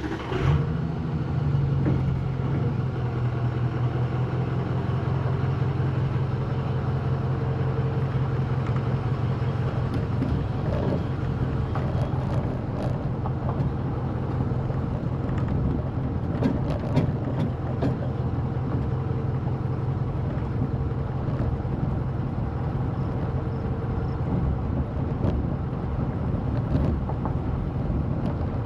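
A motor vehicle engine running with a steady low drone, with a few faint clicks over it.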